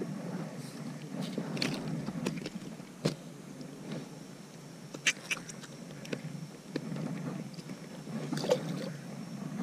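Water lapping softly against a small inflatable fishing boat, with a few sharp clicks and taps from handling a small bass and the fishing tackle: the strongest about three seconds in, a cluster around five seconds and another near the end.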